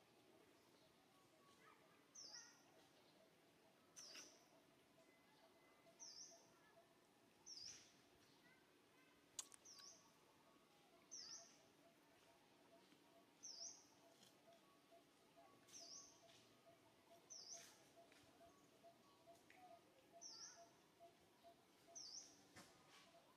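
A bird calling faintly, repeating a short, high, downward chirp about every two seconds, around ten times. A faint steady pulsing tone runs underneath.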